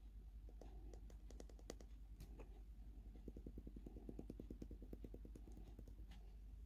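Soft light clicks of fingers tapping a tiny glass vial to shake flour into a small brass bowl: a few scattered taps, then a quick run of about ten taps a second about three seconds in, over a faint steady hum.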